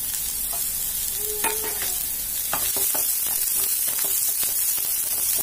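Chopped onion, garlic and green chilli sizzling in hot oil in a nonstick frying pan. From about a second and a half in, a spatula stirs and scrapes the pan in a string of short strokes.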